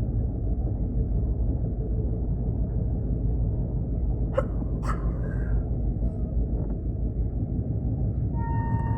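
Railway train running with a steady low rumble; two sharp clicks about halfway through, and a steady high tone begins near the end.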